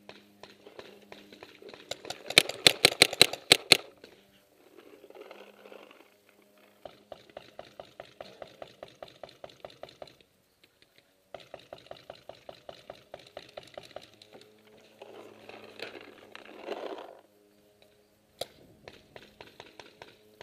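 Paintball markers firing in rapid strings of about six shots a second. One loud, close string of about eight shots comes two to four seconds in, and quieter strings follow from farther markers. A rustling scuffle is heard twice between the strings.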